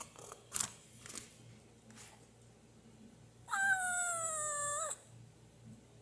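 A kitten meowing once, a single long call of about a second and a half that falls slightly in pitch, with a few faint clicks before it.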